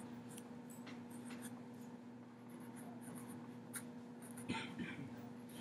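Sharpie fine-point permanent marker scratching on paper as letters are written, faint short strokes over a steady low hum, with one louder tap-like stroke about four and a half seconds in.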